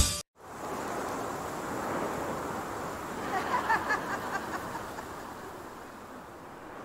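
Steady rushing noise like wind on the microphone, fading slowly over the second half, with a few faint short high sounds about three and a half seconds in.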